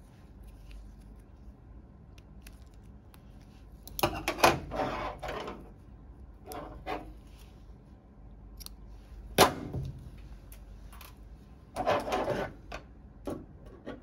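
Metal surgical instruments, a needle holder and scissors, handled while tying and cutting a suture: several short bursts of clicking and rustling, with one sharp click a little past halfway through.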